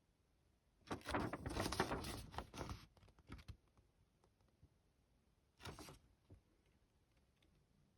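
Model-kit packaging and plastic parts being handled: a crinkling rustle for about two seconds, a few light clicks, then a shorter rustle near six seconds.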